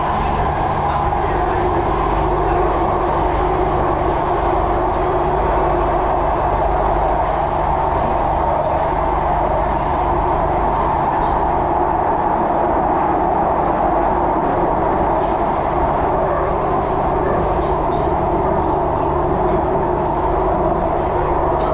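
Singapore MRT train running at speed between stations, heard from inside the carriage: a loud, steady rumble and hum that does not change.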